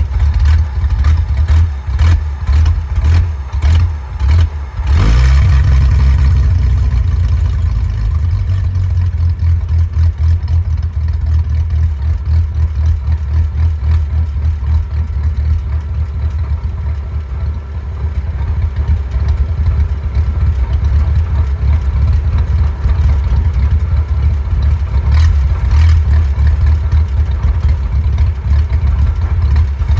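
Willys engine idling roughly, its beat stumbling and uneven at first. About five seconds in it briefly picks up, then settles into a steadier but still wavering idle.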